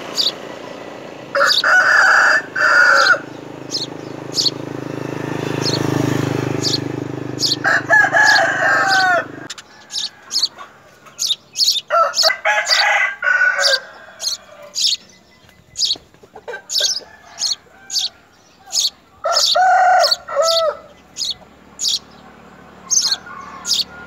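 A rooster crowing four times, each crow lasting about two seconds, over many short, high chirps from house sparrows at the nest. A low steady hum underneath stops suddenly about nine seconds in.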